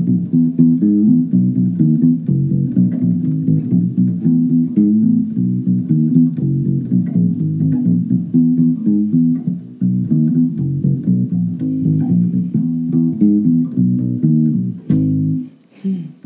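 Short-scale electric bass guitar, a Fender Mustang bass with a split-coil pickup, played through an amplifier: a continuous line of plucked notes, with a short break near the end.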